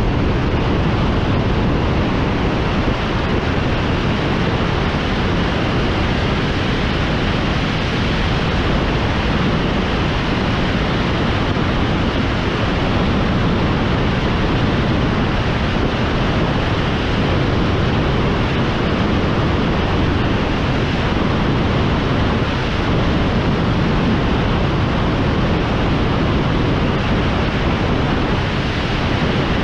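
Steady rush of wind on the microphone of a motorcycle-mounted camera at highway speed, with no clear engine note rising above it.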